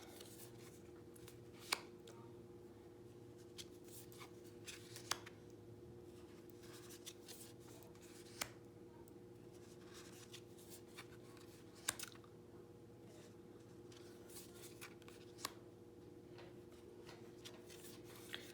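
Tarot cards being flipped through by hand: faint, irregular clicks and slides of card stock, a dozen or so across the stretch, over a steady low hum.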